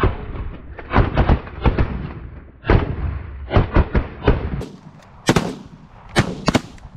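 A volley of shotgun fire from several hunters shooting at Canada geese: a dozen or so shots in quick, uneven succession, the last few sharper and closer.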